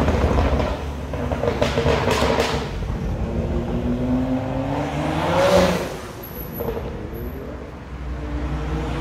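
Sports car engines accelerating hard. One engine climbs steadily in pitch to its loudest about five and a half seconds in, then fades away.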